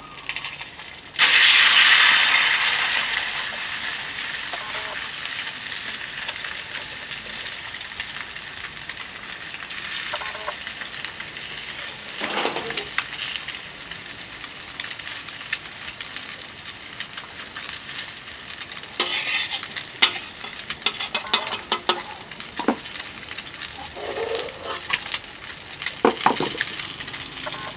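Egg frying in hot oil in a pan: a loud sizzle that starts suddenly about a second in, then settles to a steady sizzle, with occasional scrapes and clicks of a utensil against the pan.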